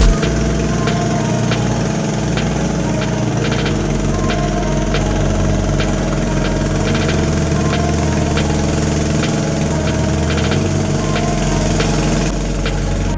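Small boat engine running steadily at an even speed, pushing a wooden boat along, with scattered light clicks.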